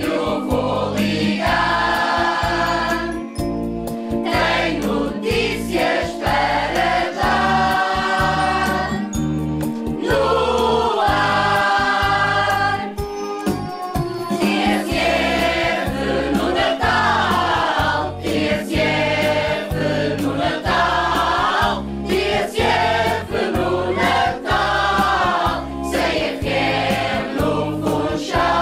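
A choir singing a Christmas song over instrumental backing with a steady bass beat.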